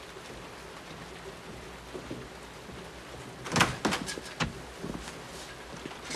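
Steady faint hiss of rain, then a cluster of clicks and knocks about halfway through as a glass-panelled office door is unlatched and pushed open, with a heavier thump right at the end.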